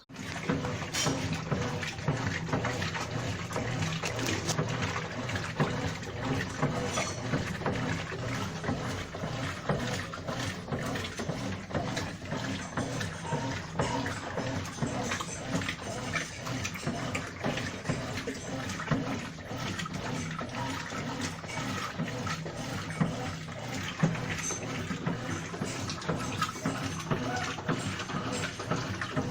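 Water running steadily into a Brastemp Ative washing machine's tub as it fills.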